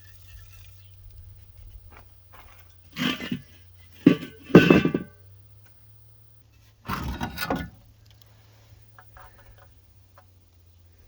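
Three short bursts of knocking and scraping, about three, four and seven seconds in, as car body parts are worked loose and handled, over a low steady hum.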